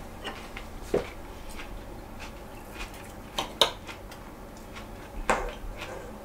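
Knife and fork clinking and scraping on ceramic plates while cutting a tuna steak: a few sharp clinks, the loudest about three and a half seconds in.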